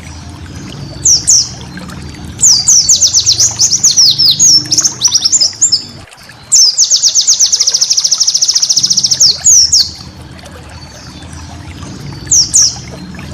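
White-eye (pleci) singing: bursts of high, quick chirps and falling notes, with a fast, even trill of high notes lasting about two seconds near the middle.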